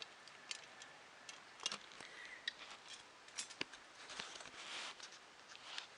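Scattered light clicks and taps from small plastic and metal parts of a ZX Spectrum+ keyboard being handled during disassembly, with a brief rustle about four to five seconds in.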